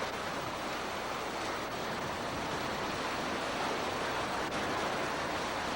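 Hurricane-force wind rushing steadily over a camcorder microphone, a dense unbroken noise.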